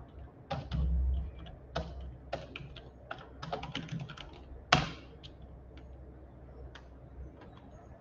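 Computer keyboard being typed on: scattered, irregular keystrokes as a terminal command is entered. One sharp, loud key strike just before five seconds in is the Enter key. A brief low rumble comes about a second in.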